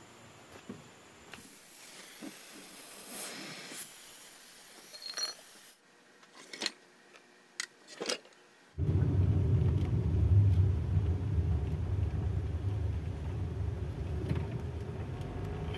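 A few sharp clicks and knocks from work at the car's front wheel. Then, about nine seconds in, the steady low rumble of the Honda driving, heard inside the cabin, with no suspension creak: the "kriiiuk" creak is gone now that the worn suspension parts have been replaced.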